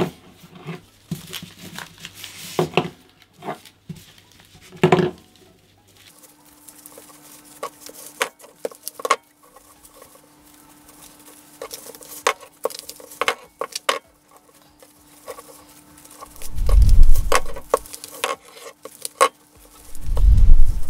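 Dried hydrangea heads rustling and crackling as they are wired onto a straw wreath ring, with scattered small clicks and crinkles from the handling and the binding wire. Two heavy dull thumps come near the end, the loudest sounds in the stretch.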